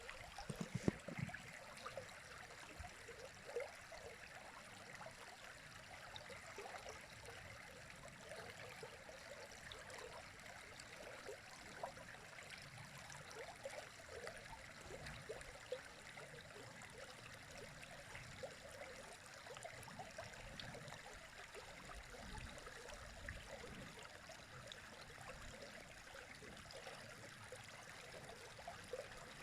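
River water running steadily over stones, a soft, even rush with small splashes and gurgles. About a second in there are a few brief low thumps.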